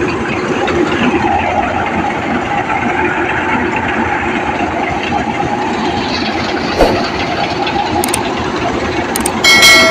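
Preet 987 combine harvester running steadily at full working speed while its unloading auger pours threshed wheat into a trolley. A few short clicks come in the second half, and near the end there is a sharp click followed by a ringing chime.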